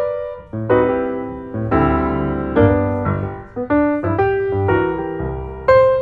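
Background piano music: slow chords struck about once a second, each ringing and dying away before the next.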